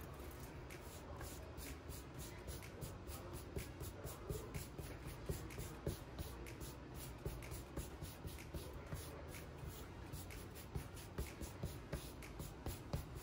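A hand rubbing back and forth over a cloth bandana, a run of quick brushing strokes a few times a second.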